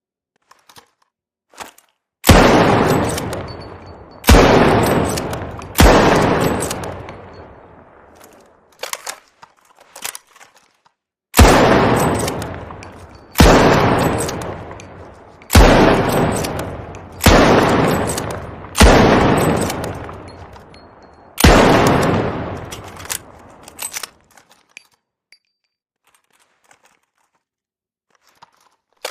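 SR-84 sniper rifle sound effect: nine single shots, each a sharp crack with a long echoing tail that fades over about two seconds. Three shots come first, then a few faint short clicks, then six more shots.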